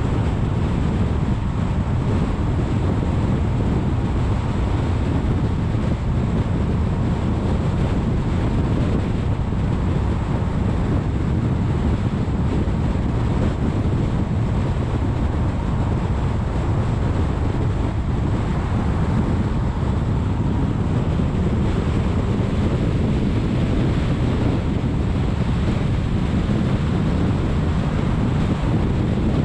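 Steady wind rush and road noise of a car travelling at freeway speed, picked up by a camera mounted on the outside of the hood: a dense low rumble with a thinner hiss above it and no changes.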